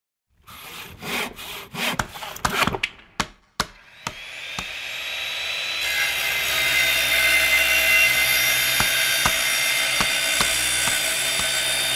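Sawing: about seven quick strokes, then a whirring tool sound that rises over a few seconds and holds steady with an even whine.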